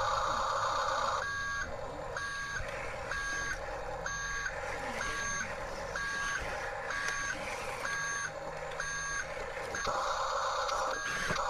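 Electronic reversing beeper of a Huina radio-controlled construction toy, beeping about twice a second. A whirring noise from the toy's motors swells at the start and again near the end.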